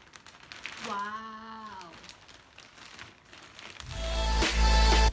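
Thin plastic carrier bag crinkling as it is handled, with one short, held voice sound about a second in. Near the end, loud electronic music with a heavy bass starts.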